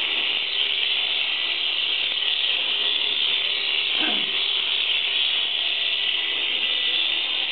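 Electric shearing handpiece running steadily as it clips an alpaca's fleece, a constant high buzz, with a short falling sound about four seconds in.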